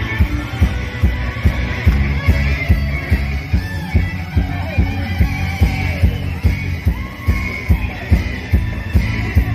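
Music with a fast, steady drum beat and a gliding melody line over it.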